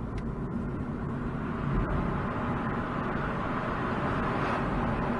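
MINI John Cooper Works driving: steady engine and road noise.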